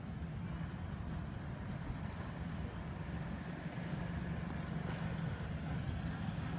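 A motor vehicle engine running steadily, a low hum with no change in pace.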